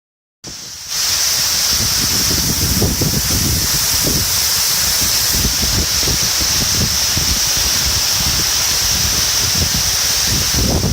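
Gljúfrabúi waterfall's steady rushing noise, cutting in suddenly about half a second in, with uneven low rumbling beneath it.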